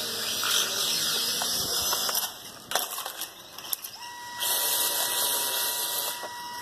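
Small toy quadcopter drones tied together, propellers buzzing, then clattering down onto concrete in a crash about three seconds in. About a second later a steady high tone starts and holds.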